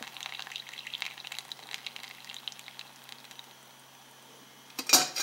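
Hot tea poured in a thin stream from a small stainless steel pot into a paper coffee filter, a light splashing trickle that tapers off over a few seconds. A sharp knock sounds near the end.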